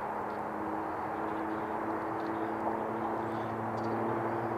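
Steady drone of a distant engine, a held hum over a constant rushing background noise.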